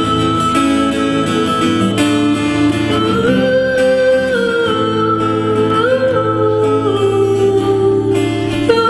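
A woman singing in long held notes over a strummed acoustic guitar, live on stage.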